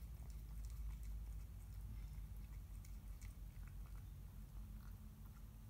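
A cat chewing wet cat food from a stainless steel bowl: faint, scattered small wet clicks and smacks, over a steady low hum.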